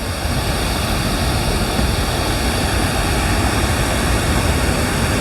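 Water pouring over a man-made waterfall, rushing steadily with a heavy low rumble.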